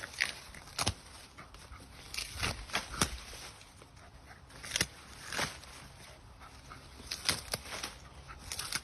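Dry corn husks and stalks crackling and snapping as a dog tears at the corn, in a dozen or so irregular sharp crunches, some in quick pairs.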